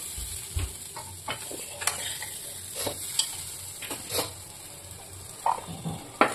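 A metal spatula scrapes and knocks in a kadai as fried boiled chickpeas (chana) are stirred and scooped out, with scattered clicks over a steady hiss of sizzling oil. A sharper metal knock comes near the end.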